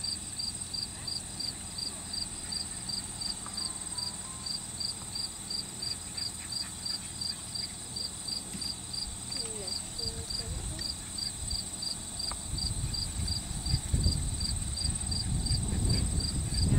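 Insects calling steadily in the field: a pulsed chirp about three times a second with a continuous high buzz above it. A low rumble rises in the last few seconds.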